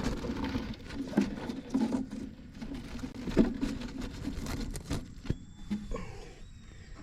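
Irregular rustling and rubbing with scattered light knocks and clicks, from close-up handling of the hive box and comb.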